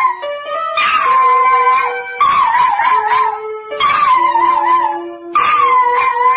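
A small brown poodle howling in about four long, wavering howls while its paws hold down keys on a toy electronic keyboard, which sounds steady held notes beneath the howls.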